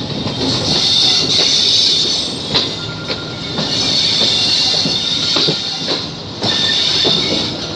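Passenger train's wheels squealing on the rails as the coaches round a curve, a steady high squeal broken by scattered clacks over rail joints and points, heard from an open coach door.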